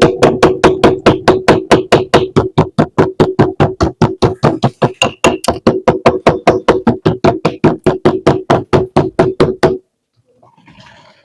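Background music with a fast, even beat of sharp clicks, about five a second, over a steady hum, stopping abruptly near the end. A few faint, irregular crackles follow.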